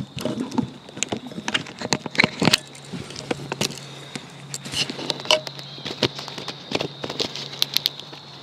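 Handling noise from the camera being turned on its tree-stand mount: irregular clicks, taps and rustles, busiest in the first three seconds.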